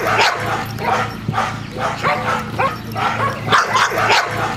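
A dog barking repeatedly, about two to three sharp barks a second, as it holds its place on the object it guards: a trained bark and hold, barking at a person without biting.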